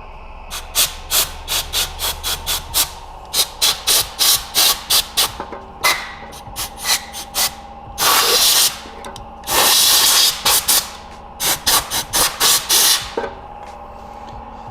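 Compressed-air blow gun blasting dirt and sand out of the rear suspension spring seat: a rapid run of short hissing puffs, with two longer blasts lasting about a second each near the middle.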